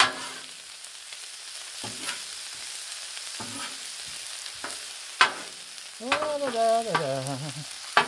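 Sliced smoked sausage and chopped onion, pepper and celery sizzling on a Blackstone flat-top griddle, with a metal spatula scraping and clacking on the steel cooktop now and then; the sharpest clack comes a little after five seconds. Near the end a voice hums a short wavering tune.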